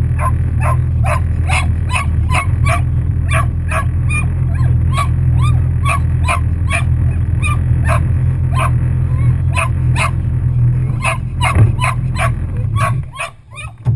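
Labradoodle barking in short, repeated barks about twice a second, over the steady low hum of a Yamaha FX SHO waverunner's engine idling. The engine cuts off about a second before the end, and the barking goes on.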